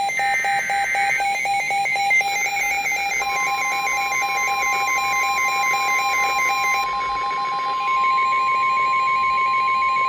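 Several emergency alert tones sounding at once: a rapid beeping and a warbling higher two-note tone. About three seconds in they are joined by a steady single-pitch tone, the weather radio warning alarm tone that comes before a broadcast warning message.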